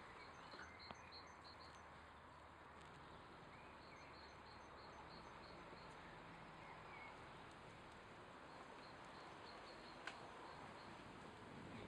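Near silence: faint outdoor background with a small bird's short runs of high chirps.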